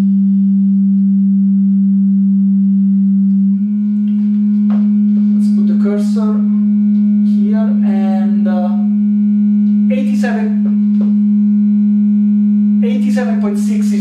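A loud, steady sine test tone near 200 Hz from a tone-generator app, played into the room through a studio monitor. About three and a half seconds in it steps up slightly, from 196 Hz to 207 Hz, onto a room resonance peak.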